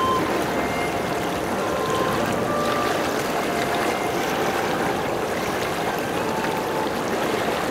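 Steady rushing water, like waves or a stream, with no separate events standing out.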